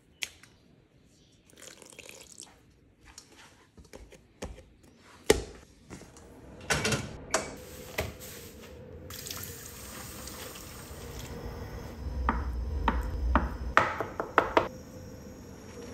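Kitchen food-prep sounds with no speech: scattered knocks and clicks, water splashing as bok choy is washed in a plastic colander, and a cleaver knocking on a bamboo cutting board in a quick cluster near the end.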